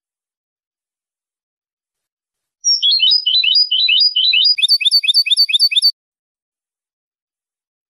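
European goldfinch singing clean song: one phrase of rapid twittering notes, starting a little over two seconds in and lasting about three seconds, ending in a fast run of repeated chirps.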